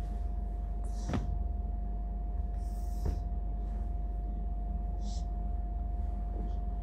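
Soft swishes of fabric and a couple of light knocks as a cotton garment is flapped and handled, over a steady low hum and a faint steady tone.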